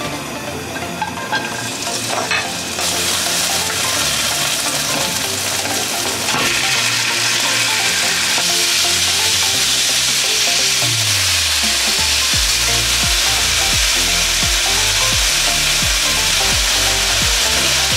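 Green onions and ground pork sizzling in hot oil in a wok, stirred with a wooden spatula. The sizzle grows louder a few seconds in and then runs steadily.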